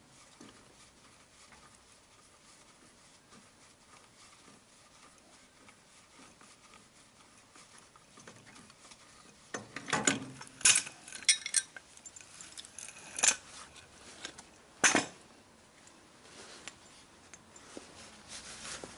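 Quiet background, then about halfway a short cluster of sharp clinks and knocks, five or six over some five seconds, as the worker shifts and handles things beside the caster wheel.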